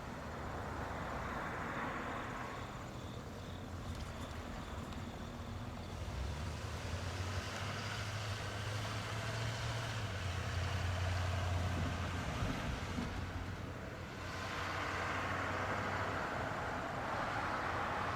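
Road vehicles passing: tyre noise swells and fades near the start and again late on, with a heavier low engine rumble in between.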